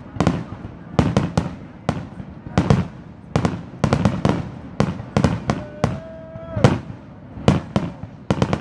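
Aerial fireworks bursting in quick succession: sharp bangs, several a second, some with crackle and a low rumble after them.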